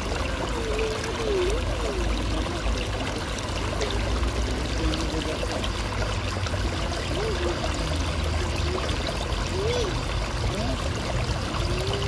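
Water pouring from several spouts beneath concrete slabs into a shallow fountain pool, a steady splashing rush.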